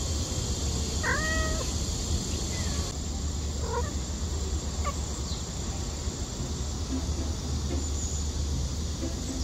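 Cats meowing: one clear meow about a second in, then a few shorter, fainter meows.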